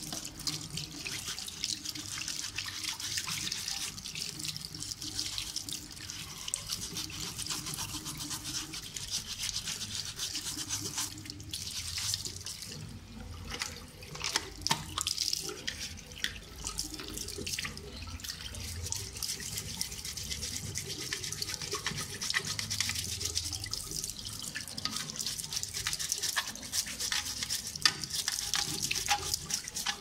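An old toothbrush scrubbing a dishwasher's plastic filter and metal mesh plate under a running tap, water splashing into the sink.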